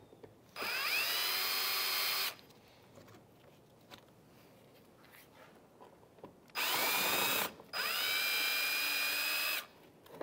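Cordless drill with a Phillips bit spinning out Phillips-head retaining clips, run three times: once about half a second in for under two seconds, then twice back to back near the end. Each run is a motor whine that rises as it spins up and then holds steady.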